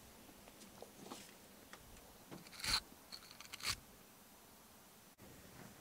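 Faint handling noises of hands working with light bulbs: two short scraping rustles, a little under three and just under four seconds in, with a few light ticks between.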